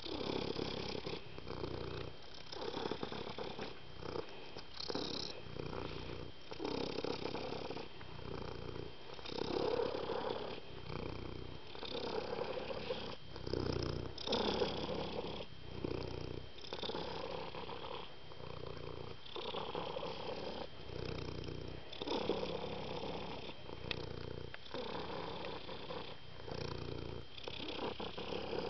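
Domestic cat purring steadily, the purr swelling and fading with each breath about once a second.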